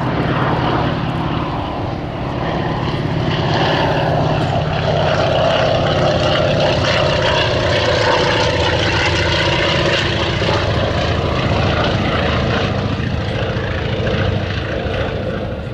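Antonov An-2 biplane flying past low, its nine-cylinder radial engine and propeller running steadily. The sound grows a little louder in the middle of the pass.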